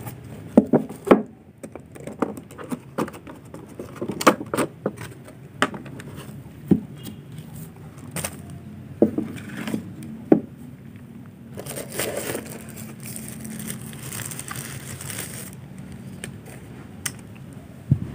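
Handling noise as a hair clipper and its packaging are taken in hand: scattered clicks and knocks, and a few seconds of plastic crinkling and rustling starting about twelve seconds in.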